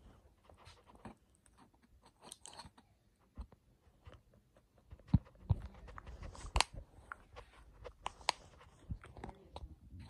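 A clear plastic cup being handled and turned by hand, giving irregular light clicks and knocks, with a few sharper thumps between about five and nine seconds in.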